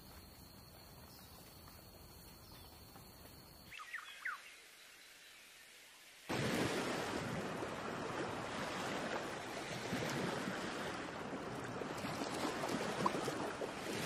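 Quiet outdoor ambience with a steady high tone, and a few short bird chirps about four seconds in. About six seconds in, the steady wash of sea surf breaking below a cliff starts suddenly and carries on.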